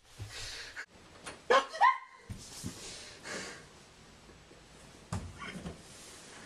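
Two short calls from a household pet about a second and a half in, each bending up and then down in pitch, followed by soft rustling and a dull knock about five seconds in.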